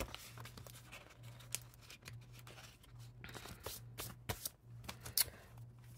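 Paper planner inserts and photos being handled and slid into a ring planner: light paper rustling with scattered small clicks and taps, over a faint steady low hum.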